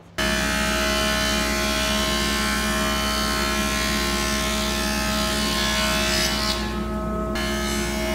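Thickness planer running and planing oak strips: a loud, steady machine sound of motor and cutterhead with dense cutting noise. About six and a half seconds in, the cutting noise drops out for under a second between boards, then resumes.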